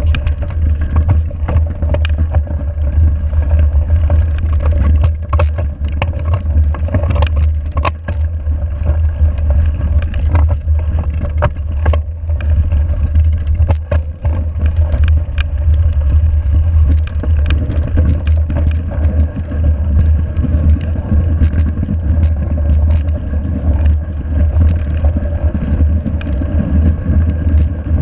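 Mountain bike riding over a snowy gravel road. A steady low wind rumble on the camera microphone runs under the tyre noise, with frequent clicks and rattles from the bike over the rough surface.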